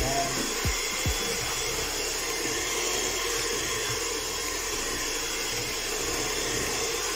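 Electric hand mixer running steadily, its beaters whipping cheesecake filling in a stainless steel bowl, with two short thumps in the first second or so.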